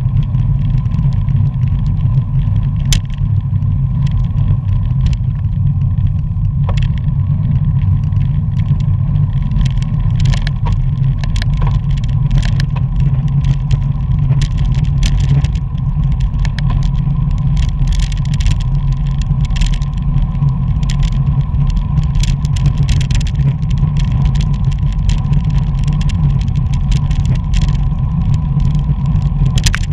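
Wind rushing over the microphone of a camera on a racing bicycle moving at speed with a group of riders: a steady low rumble mixed with tyre and road noise. From about ten seconds in there are frequent short, sharp clicks and ticks.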